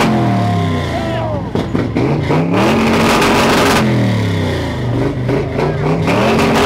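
An engine is revved hard and held at high revs over and over. At the start it is dropping back from high revs. About two and a half seconds in it climbs and holds steady, falls again around four seconds, then climbs and holds once more near the end.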